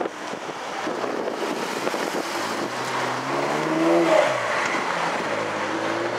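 Cars driving over a railroad crossing. One car's engine revs up and then eases off, its pitch climbing to a peak about four seconds in, the loudest moment, before falling, over a steady wash of traffic noise.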